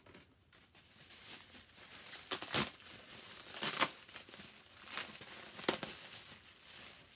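Plastic bubble wrap crinkling and rustling as it is pulled off a plush toy, with a few sharper, louder crackles.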